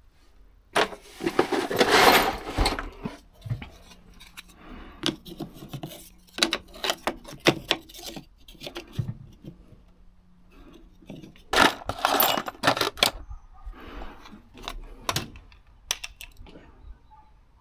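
Small metal fittings and trim parts being handled: a run of clicks, clinks and rattles like screws and washers being picked through, with two louder spells of rustling and scraping, near the start and about two-thirds through.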